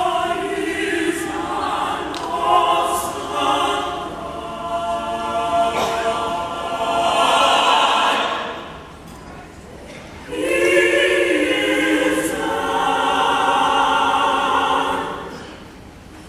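Gospel choir singing together in long held chords, in two phrases with a short break about nine seconds in, the second phrase fading away near the end.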